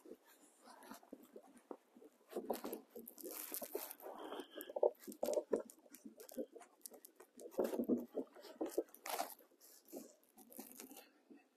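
Irregular crunching, scraping and knocking from gear being handled in a small boat, in uneven clusters with the loudest about three seconds in and again near eight seconds.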